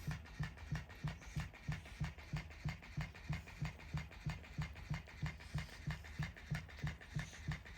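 Battery-powered toy raccoon's motor mechanism running, with an even pulsing of about three to four beats a second over a steady low hum.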